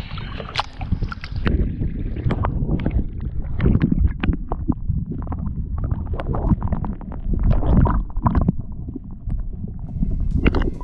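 Lake water sloshing and gurgling around a camera held at the surface and dipped under, with heavy low rumbling and many short splashes and clicks.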